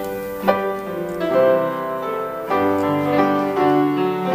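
Piano playing slow hymn chords, each chord struck and left to ring before the next.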